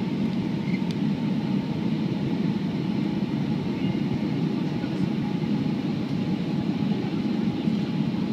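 Steady cabin noise inside an Airbus A330-300 airliner on its landing approach: engines and rushing air as an even, low drone with a faint steady whine above it.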